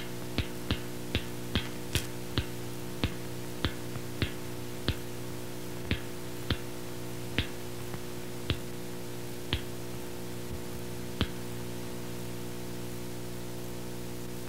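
A series of sharp clicks that slows steadily, from about three a second to one every second or more, and stops about 11 seconds in, over a steady electrical hum.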